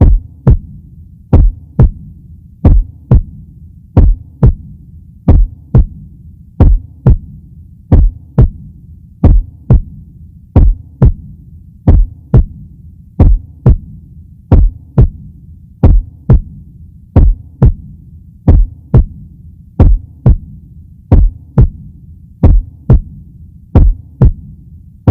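Heartbeat sound effect: paired low thumps, a lub-dub about every 1.4 seconds, in a slow, steady rhythm over a low hum.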